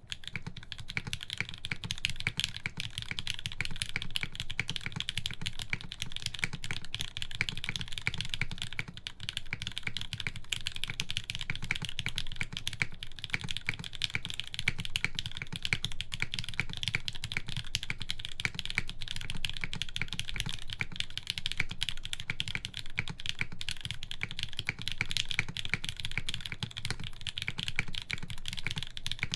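Steady, rapid typing on a TGR GAF 910 mechanical keyboard with Gateron Hippo switches lubed with 205g0, mounted on a full aluminum plate, keystrokes following one another closely without pause.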